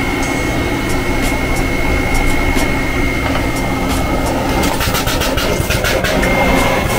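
Inverter resistance spot welder running with a steady hum and a thin high whine. A quick run of clicks and taps comes about five seconds in, as the welding gun's copper electrodes are set against the sheet-metal panel.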